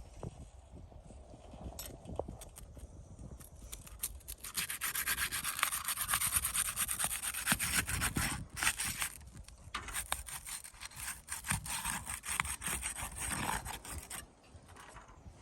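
Asphalt roof shingles being pried up and scraped loose from their seal strips. A continuous rasping scrape with scattered sharp clicks gets much louder about four and a half seconds in and eases off near the end. The shingles are brittle and tear as they are pried.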